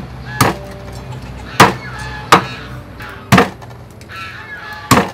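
Meat cleaver chopping raw catfish into pieces: five heavy, sharp chops at uneven intervals of about a second.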